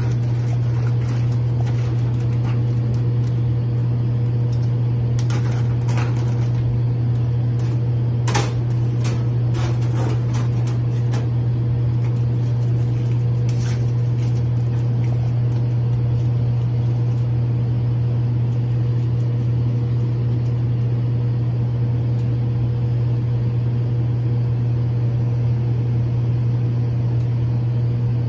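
Steady low hum of a biosafety cabinet's blower fan. Between about five and fourteen seconds in come a cluster of crackles and clicks as a serological pipette's plastic-and-paper wrapper is torn open.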